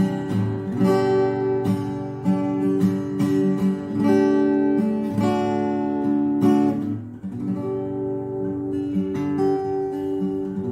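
Koa-bodied jumbo steel-string acoustic guitar, strummed chords ringing out: a sound test of its tone, with full bass and bright highs.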